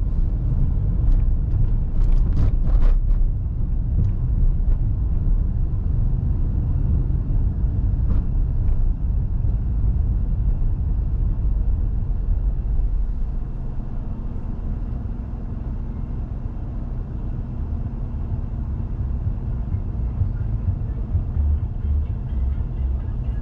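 Car driving: a steady low rumble of engine and road noise, with a few sharp clicks about two to three seconds in. About halfway through a steady low hum comes in and the rumble eases slightly.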